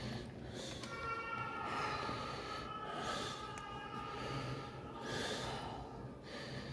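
A shaken person breathing hard, with heavy breaths about every two and a half seconds and a brief high whine in the first half.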